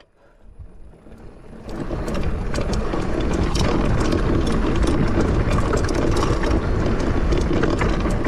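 Mountain bike rolling over rock: a steady rumble from the tyres with many quick clicks and rattles from the bike, fading in over the first two seconds.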